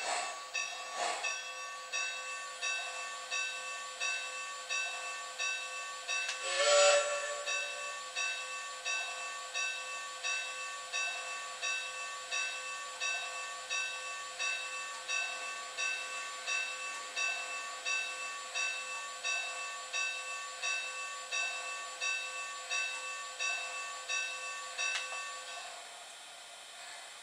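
Onboard sound system of a Lionel LionChief Plus O gauge Mikado steam locomotive playing an even rhythm of chuffs, about one and a half a second, over a steady electronic tone. A short loud blast sounds about seven seconds in, and the chuffing stops shortly before the end.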